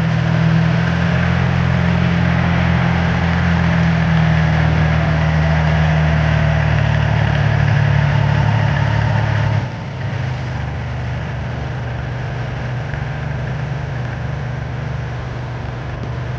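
Engine of a power pesticide sprayer running steadily. About ten seconds in it gets quieter and its low drone changes.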